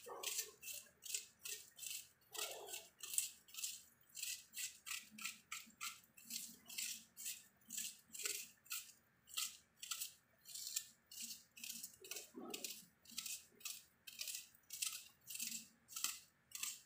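Knife cutting a raw onion held in the hand, a steady run of short, crisp strokes about three a second.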